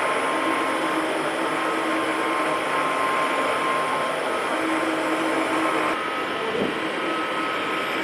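CNC broach grinding machine running, its grinding wheel spinning against a toothed broach: a steady whirring hiss with a steady hum. About six seconds in the sound drops slightly and changes.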